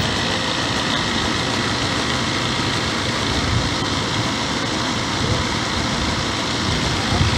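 Appion G5Twin refrigerant recovery machine running steadily, pumping refrigerant out of the old heat pump into a recovery cylinder while recovery is in progress.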